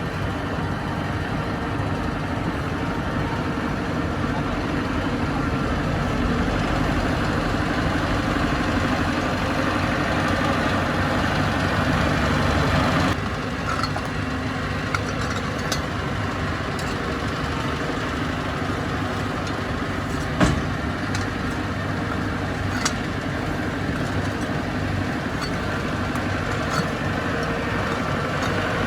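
Bulldozer's diesel engine running steadily, with a few short sharp knocks, the loudest about twenty seconds in. The sound drops abruptly about thirteen seconds in.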